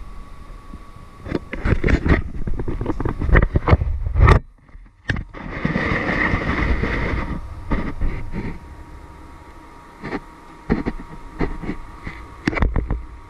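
Camera handling noise: fingers gripping, tapping and rubbing on the camera right at its microphone. It makes a string of irregular knocks and clicks, with a stretch of scraping and rubbing about six seconds in.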